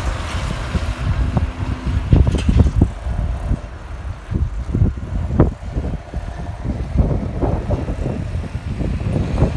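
John Deere 7530 tractor's six-cylinder diesel engine running as the tractor drives away, with heavy wind buffeting the microphone in irregular gusts.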